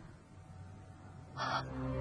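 Low, quiet background rumble, then about a second and a half in a short harsh burst, and sombre background music with sustained low tones begins.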